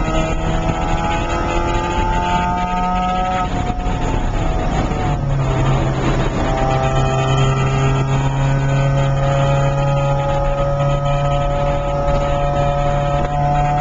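Porsche 968's 3.0-litre four-cylinder engine under hard driving on track, heard inside the cabin: its note climbs for about three and a half seconds, breaks off briefly about four seconds in, then comes back at a lower pitch and rises slowly, over steady wind and road noise.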